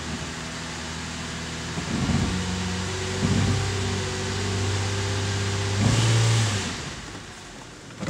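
2006 Cadillac CTS 2.8-litre V6 revved with a couple of throttle blips, held at around 2,000 rpm, then a last rise and a drop back to idle near the end. The engine has just been topped up after running very low on oil, which the mechanic takes for the cause of its misfires.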